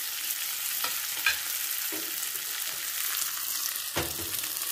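Hot ghee-and-oil tempering of fenugreek, cumin and curry leaves sizzling steadily in a small tadka pan, with chopped coriander just added. A few light utensil knocks come through it, the fullest about four seconds in.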